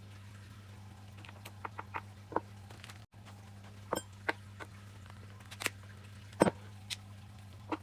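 Scattered light clicks and taps of small metal parts being handled and set down while a motorcycle rear brake master cylinder is taken apart, over a steady low hum. The loudest tap comes a little after six seconds in.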